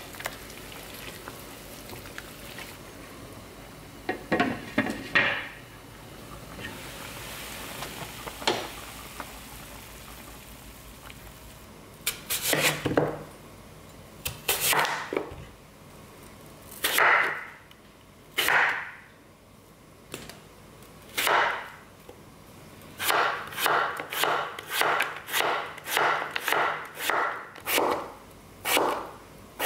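Kitchen knife cutting through a Korean radish onto a wooden cutting board: a few single, widely spaced cuts, then a steady run of chops about twice a second near the end.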